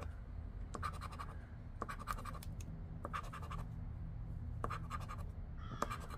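Edge of a poker chip scraping the scratch-off coating from a paper lottery ticket in short bursts of strokes, with brief pauses between them as each number is uncovered.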